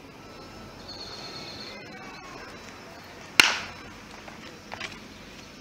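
A baseball's impact in batting practice: one sharp crack about three and a half seconds in, fading quickly, with a fainter click a little later.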